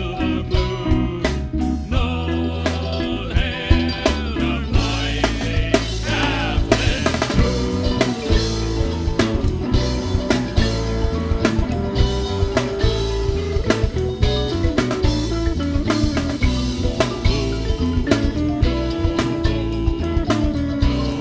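Rock band music with a drum kit keeping a steady beat under bass and guitar.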